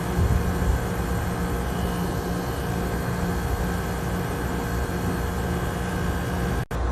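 Split air conditioner's outdoor unit running, its compressor and condenser fan giving a steady hum with a rushing fan noise. It is part-way through an R22 gas charge, still at only about 40 psi. The sound breaks off for an instant near the end.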